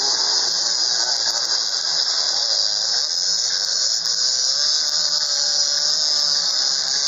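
A pack of dirt bike engines revving hard together at a race start, many overlapping engine notes rising and falling, under a loud steady high-pitched hiss.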